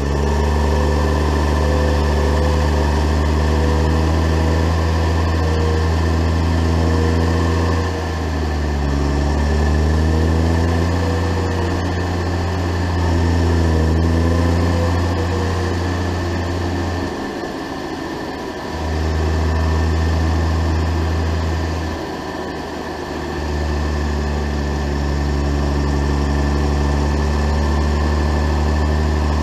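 Diesel engine of a New Holland T6000-series tractor running as it drives along the road, heard close up with a steady high whine above it. The engine note drops and shifts in pitch three times, as the throttle eases off and picks up again.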